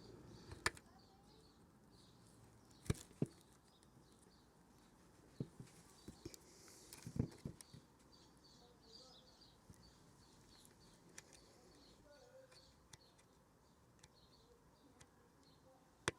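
Near silence broken by a few light clicks and knocks of plastic hose-reel connector parts being handled and pressed together, with faint bird chirps.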